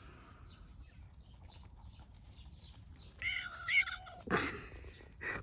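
A kitten meowing: one wavering meow of just under a second about three seconds in, then a short, loud, harsh cry a little after four seconds and a weaker one near the end.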